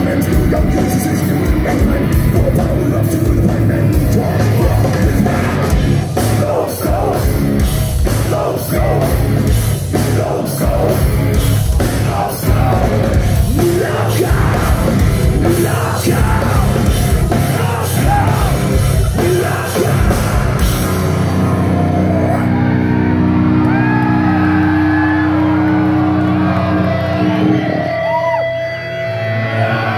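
Nu-metal band playing live: pounding drums and heavy distorted guitars for most of the stretch, with yelled singing. About two-thirds of the way through, the drums drop out, leaving held guitar chords with a voice over them.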